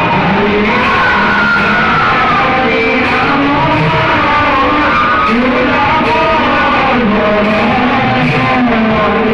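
Live Bhaona theatre music: singing over drums and cymbals, steady and loud, with sharp percussive strokes now and then.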